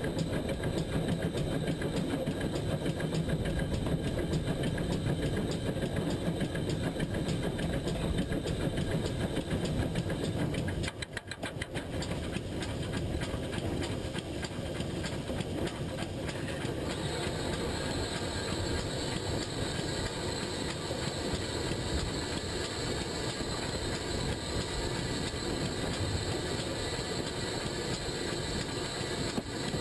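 GWR pannier tank steam locomotive running along the line, heard from the front of the engine: a steady noise of the train moving over the track. It dips briefly about a third of the way in, then carries on thinner and hissier.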